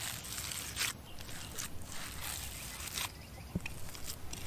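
Hands kneading and squeezing raw minced meat in a bowl, wet squelching in irregular bursts, with one light click a little past halfway.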